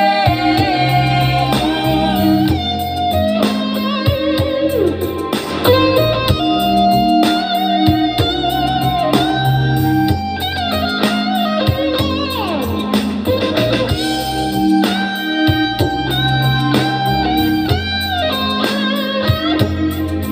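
R&B song playing through a Sonarc A3 Pro speaker during an instrumental break: electric guitar lines with bent notes over a steady bass line, with no vocals.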